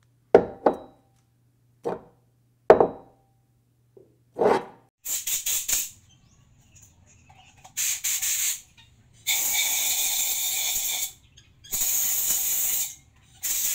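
Four or five sharp hits, each dying away quickly, over a steady low hum. From about five seconds in they give way to several separate bursts of hiss, each one to two seconds long.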